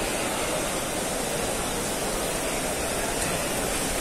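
Heavy rain falling steadily, an even hiss that does not let up.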